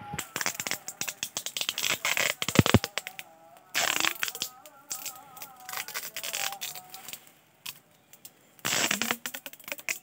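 Plastic grafting tape being pulled and wound around a chestnut graft, crackling and crinkling in quick bursts, busiest in the first three seconds and again about four and nine seconds in. The wrapping seals the graft union against air.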